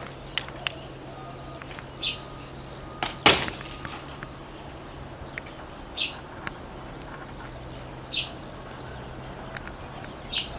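A bird calling, short chirps repeated about every two seconds, over a low steady hum. A single sharp knock about three seconds in is the loudest sound.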